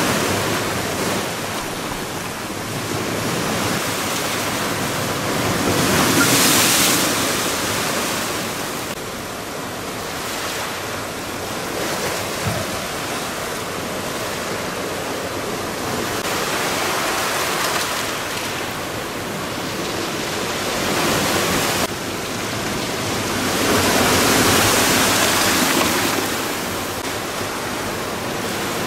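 Storm surf crashing and washing over a rocky shoreline in a steady rush of wave noise, driven by a strong southwesterly (lodos) gale. The surf swells louder as bigger waves break, about a quarter of the way in and again toward the end.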